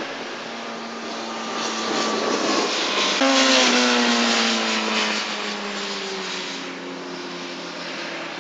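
Racing sport motorcycle engines at high revs. About three seconds in a bike passes close and is loudest, its engine note falling steadily as it goes by and fades away.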